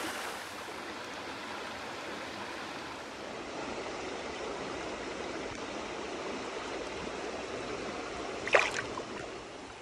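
Shallow creek water running steadily over rocks close by, with a brief sharp sound near the end.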